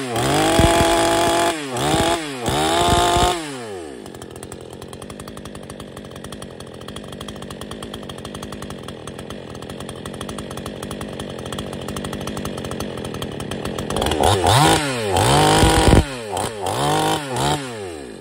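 Muffler-modded NEOTEC 6200 two-stroke chainsaw revving in quick blips, dropping to a steady idle for about ten seconds, then revving several more times and cutting out right at the end. It is running rich with the low screw turned out, and the owner says it needs a tune badly.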